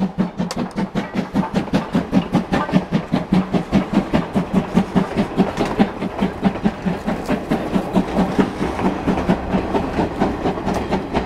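Steam locomotive pulling its train away, its exhaust chuffing in an even rhythm of about four beats a second.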